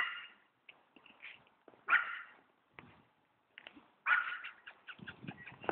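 Puppies whimpering and yipping in short high-pitched cries, three louder ones about two seconds apart with fainter squeaks between, and a patter of small scuffling knocks near the end.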